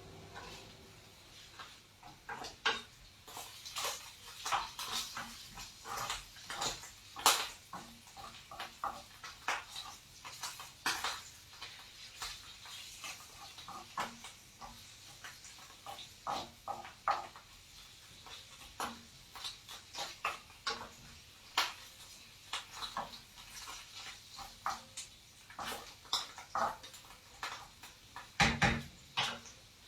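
Irregular light clicks and knocks, a few every second, with a louder cluster of knocks near the end.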